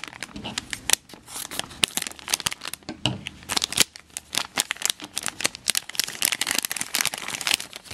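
Foil blind bag crinkling and crackling in the hands as it is worked and opened, a quick, irregular run of crackles.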